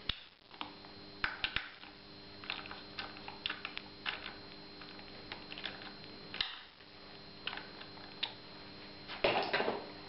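Scattered light clicks and ticks of a handheld screwdriver and fingers working a small screw into the plastic cover at the head tube of an electric trials bike. A louder rustling scrape comes near the end.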